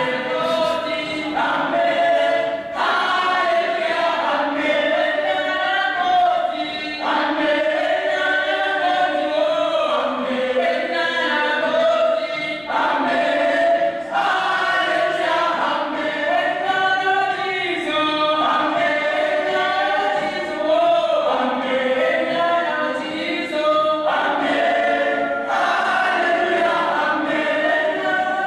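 A choir of voices singing together in sung phrases broken every few seconds, played from a film soundtrack through loudspeakers in a hall.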